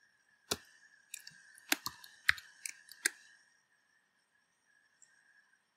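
Keystrokes on a computer keyboard: about eight short clicks over the first three seconds, then a pause in the typing.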